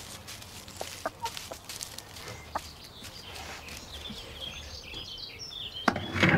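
Hens clucking, with scattered small clicks; a louder knock shortly before the end.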